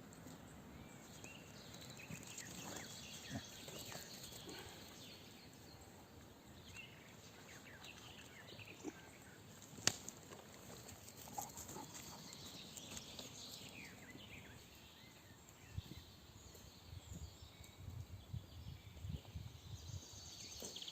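Quiet woodland ambience with faint bird chirps and scattered clicks, with one sharp snap about halfway. Near the end come a denser run of rustling and crackling.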